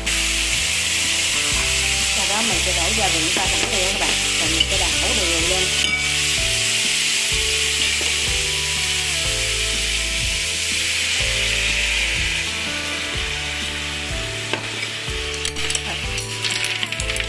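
Sea snails in their shells sizzling in a frying pan of hot oil and sauce as they are stir-fried, with a few sharp clicks of shells and chopsticks against the pan. The sizzle eases off a little in the second half.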